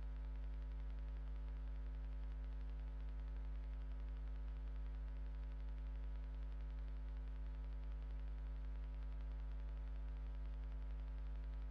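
Steady electrical mains hum with a stack of evenly spaced overtones and a faint static hiss, unchanging throughout, with no other sound.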